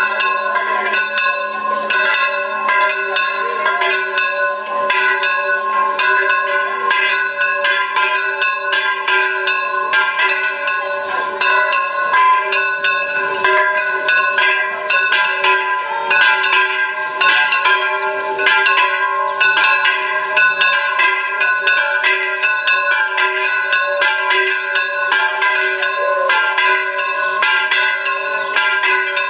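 Church bells ringing in a continuous peal, struck rapidly several times a second so that their tones ring on over one another.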